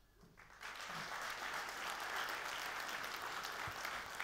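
Audience applauding: many hands clapping, starting about half a second in and keeping up steadily.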